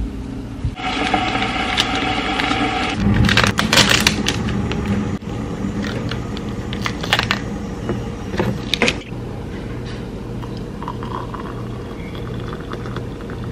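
Clinks and knocks of cups and utensils while green tea is being made, over a steady low hum. The clicks cluster in the first half and are loudest about four seconds in.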